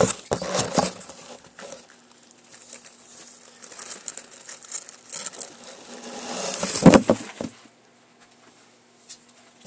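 Rustling and clattering handling noise as a phone is carried and set down, with a loud knock about seven seconds in as it is laid down.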